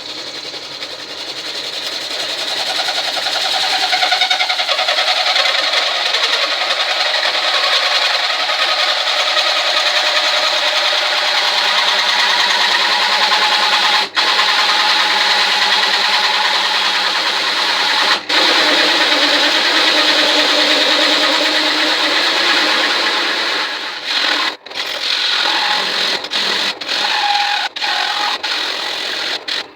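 A handheld power tool working on car body steel, running continuously at a steady loud level with two brief stops. Near the end it runs in short bursts with gaps.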